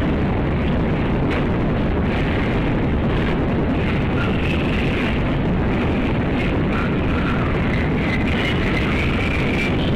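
Steady loud rumbling noise with no break, and faint wavering high-pitched tones over it from about four seconds in.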